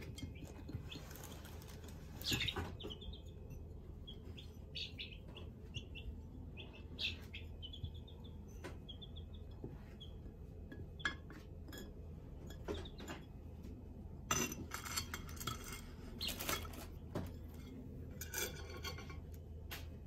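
Young chickens pecking food off china plates, their beaks clicking against the dishes, with short runs of high chick peeps in the first half. A few louder scuffling noises come in the last six seconds.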